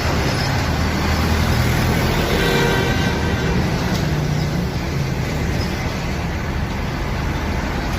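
Bus engine running amid steady road traffic noise, a low hum under an even roar.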